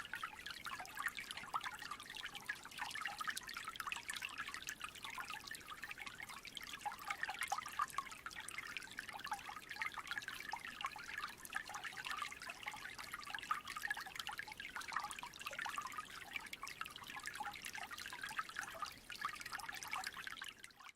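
Small creek trickling steadily, a busy babble of running water.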